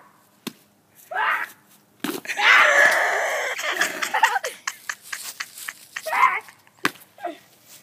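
A child yelling: a short cry about a second in, then a long, loud, hoarse scream lasting about two seconds, then a few shorter yells near the end.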